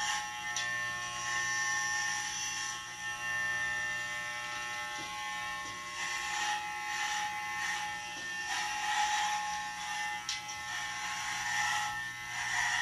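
Electric hair clippers buzzing steadily while cutting hair.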